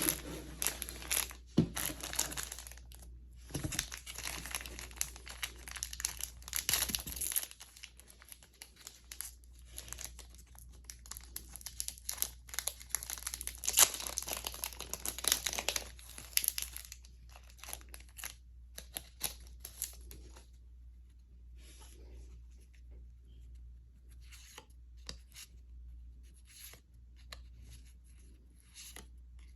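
A Yu-Gi-Oh booster pack wrapper being torn open and crinkled, in a run of loud ripping and rustling over the first half. After that come lighter, scattered crinkles and clicks as the opened pack is handled.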